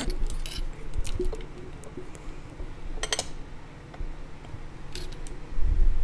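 A person hiccuping into a close headset microphone: short sharp hics, the clearest at the start, about three seconds in and about five seconds in, with small mouth clicks between. A low rumble on the microphone swells near the end.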